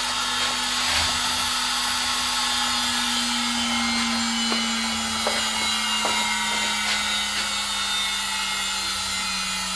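Homebrew CNC router's air-cooled spindle running with a steady whine while its engraving bit cuts letters into wood, with a dense rasping cutting noise; the whine drifts slightly lower in pitch.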